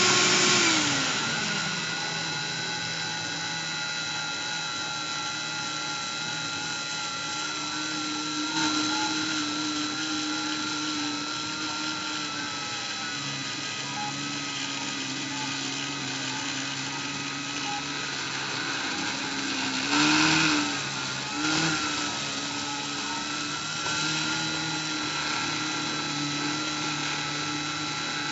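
Dremel rotary tool running on a Cyclone PCB CNC mill, with stepper motors whining and changing pitch as the axes move. A tone slides down in the first two seconds, and there are two short louder bursts about two-thirds of the way through.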